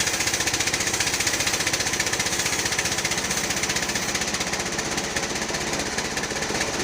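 A type 36 band sawmill running with a steady, rapid pulsing beat and a high whine over it, easing slightly in level about two thirds of the way through.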